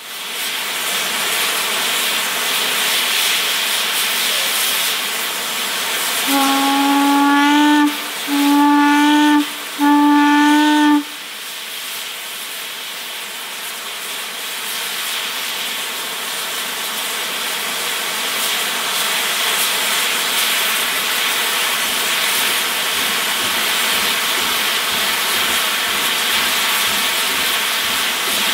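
Heisler geared steam locomotive hissing with a steady high-pressure steam release; about six seconds in its steam whistle sounds three blasts of roughly a second and a half each, the pitch lifting slightly within each blast. The hiss then carries on and grows louder toward the end as steam blows from the open cylinder cocks.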